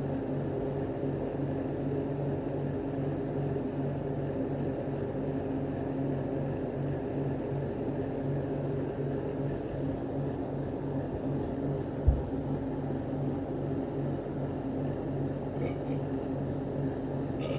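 Steady low mechanical hum with one brief low thump about twelve seconds in.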